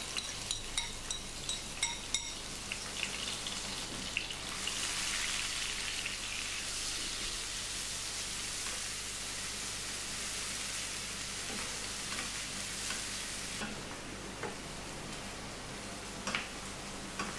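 Coarsely ground masala sizzling in hot oil in a nonstick frying pan, with a spatula scraping and tapping as it is stirred. The sizzle grows louder about four seconds in and eases about three-quarters through. The masala is being sautéed until it browns and the oil separates.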